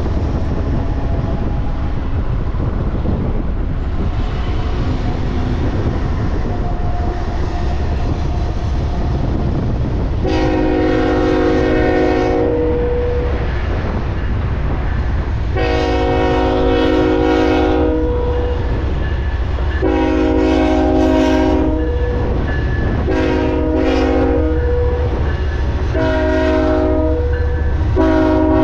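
Ferromex diesel freight locomotive's air horn sounding a show horn over a steady low rumble. From about ten seconds in it gives six blasts, the first three long and the later ones shorter, the last starting just before the end.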